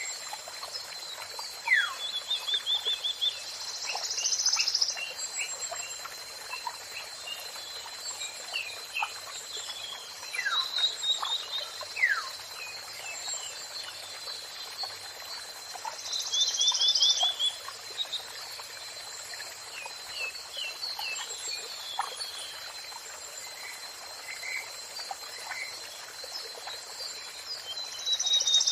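Several songbirds calling and singing: quick chirps, falling whistles and fast trills, with louder bursts of song every few seconds. Under them runs a steady rush of falling water.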